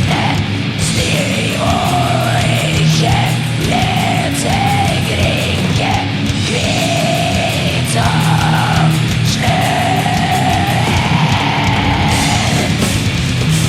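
Raw, old-school black metal song with distorted guitars, fast drumming with cymbals and harsh, yelled vocals.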